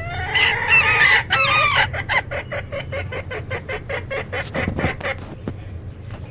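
Chickens: a rooster crows loudly for about two seconds, then a quick run of short clucks, about five a second, trails off after about five seconds.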